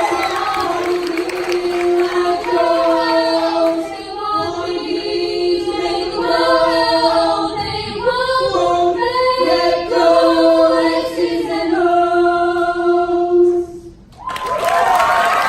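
All-female a cappella group singing in several-part harmony, holding long sustained notes before a final chord that cuts off sharply about 14 seconds in. Audience applause starts right after, near the end.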